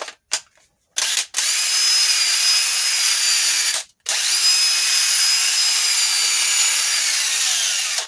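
DeWalt 18V cordless drill running with no load, powered by a Milwaukee battery through an adapter, a sign that the adapter works. A short trigger blip about a second in, then a steady motor whine for a couple of seconds, a brief stop, and a second longer run that winds down near the end.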